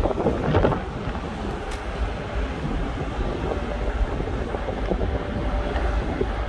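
Wind buffeting the microphone over a steady low rumble of machinery, with a few louder gusts in the first second.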